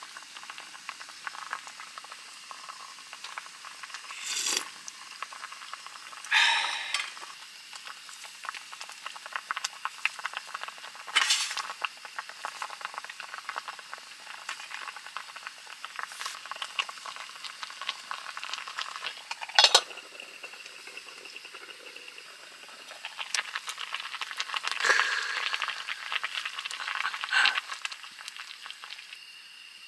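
Spicy fish stew (maeuntang) bubbling steadily at a boil in a camp pot, a dense crackle of small pops, with several short clinks and knocks of a utensil against the pot.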